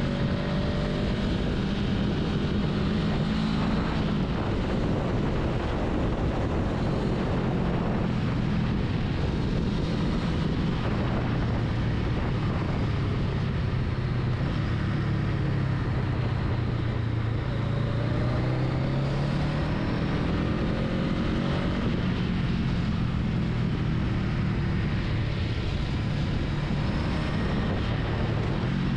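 Honda Rebel 500's parallel-twin engine running while the motorcycle is ridden, its pitch rising and falling with the throttle, over steady wind and road noise.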